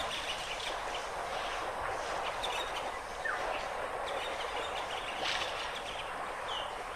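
Outdoor ambience: a steady hiss of background noise with a few faint, brief bird calls, one about three seconds in and one near the end.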